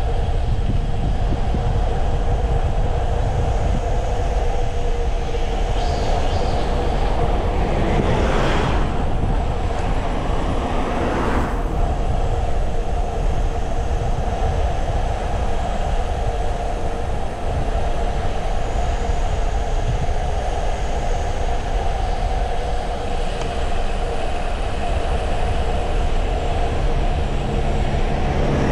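Wind rushing over the microphone and the tyres humming on the road as a Brompton folding bike speeds downhill, a loud, steady rumble with a faint hum over it. Two brief swells of noise come about a third of the way in.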